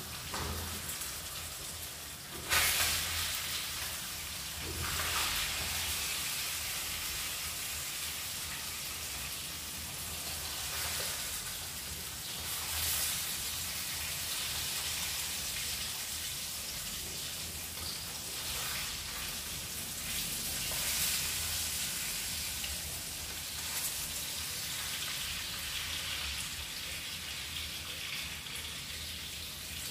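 Salmon fillet frying in oil in a pan, sizzling steadily, with several louder spurts of crackling as it is moved and turned with a wooden spatula.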